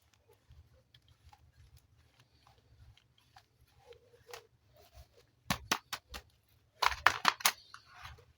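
Handling of plastic toys and packaging: faint ticks and rustles, then a quick run of sharp plastic clicks about five seconds in and a louder burst of clicks and crinkling near the end.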